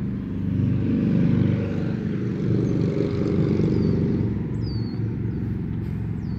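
A steady low engine drone, with a few faint high chirps about four to five seconds in.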